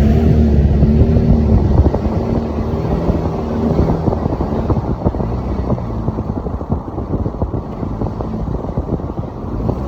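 Ford Mustang V6's engine and exhaust running under way, holding a steady note for about two seconds, then easing into a rougher, lower rumble that slowly gets quieter.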